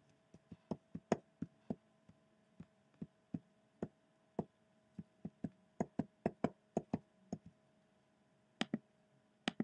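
Light, irregular tapping on a hard surface: about thirty quick taps, some in short runs, with a pause near the end. A faint steady hum sits beneath.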